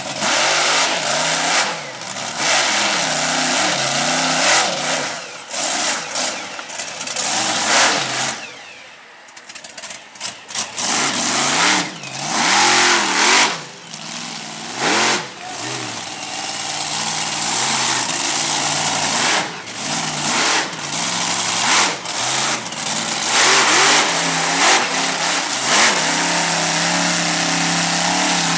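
Monster truck's engine revving hard again and again, its pitch repeatedly climbing and falling, with a quieter lull about nine seconds in and steadier high revs near the end.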